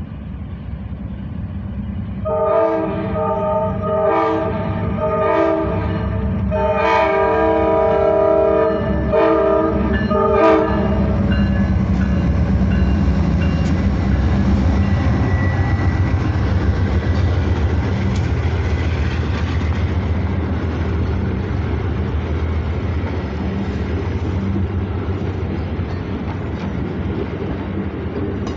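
Amtrak passenger train passing a grade crossing: the GE P42DC Genesis locomotive sounds a series of horn blasts from about two seconds in until about eleven seconds in. Then the locomotives' diesel engines run and the passenger cars pass in a steady rumble, with wheels clattering over the rails.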